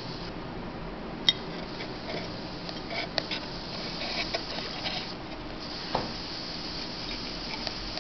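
Flyback-transformer high-voltage plasma rig on a glass vacuum vessel: a steady hiss with scattered sharp clicks and light glassy ticks. One loud click comes about a second in, a run of smaller ticks follows through the middle, and another click comes near six seconds.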